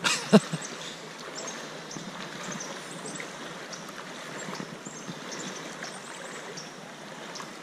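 Shallow rocky creek running, a steady rushing of current through riffles, with one short sharp sound about half a second in.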